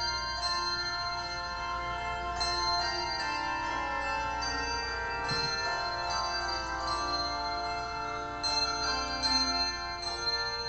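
A handbell choir playing a tune: bells rung one after another at many pitches, each note ringing on and overlapping the next.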